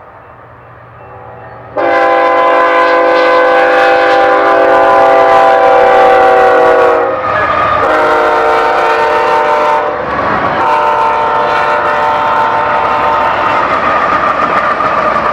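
Freight locomotive air horn sounding a chord in three blasts as the train passes close: a long one about two seconds in, a shorter one, then another long one. Under the horn, the freight train's rumble and rolling noise run on.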